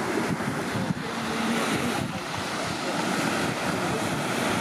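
Steady wash of ocean surf on the beach, with wind on the microphone.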